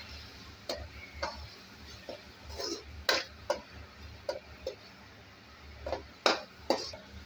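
A spoon stirring tomatoes and curry leaves into onion paste in a pan on high heat, knocking and scraping against the pan in irregular clicks; the loudest knocks come about three seconds in and twice near the end.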